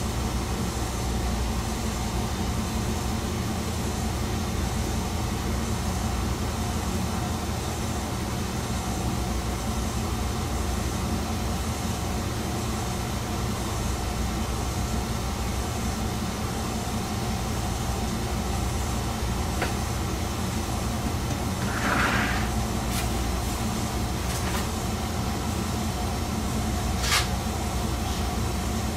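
Chizu Express HOT3500 diesel railcar heard from inside the cab: a steady engine drone with a low rumble that stays at one pitch. A brief louder noise about two-thirds of the way through and a sharp click near the end.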